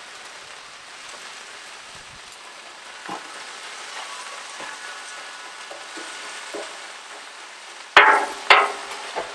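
Frozen vegetables coated in ice sizzling steadily on a hot Blackstone flat-top griddle, the melting ice spitting on the hot steel, with a metal spatula scraping the plate a few times; two loud spatula scrapes and clatters come about eight seconds in.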